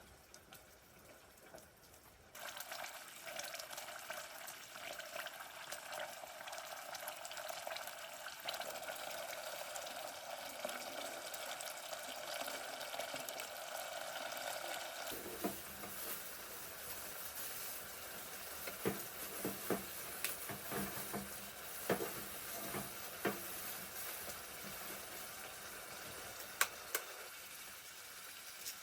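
Sizzling, like food frying in a hot pan, starting suddenly a couple of seconds in, with scattered crackles and pops through the second half.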